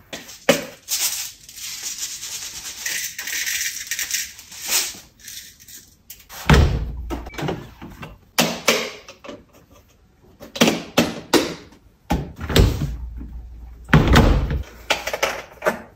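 Doing laundry at a washing machine: a string of knocks, clatters and a few heavy thumps from the machine's door and lid and the laundry being handled, with a stretch of rustling between about one and five seconds in.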